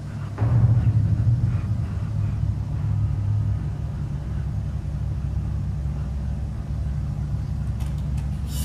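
Orchestra holding deep, sustained low notes as a steady drone, swelling about half a second in and then holding.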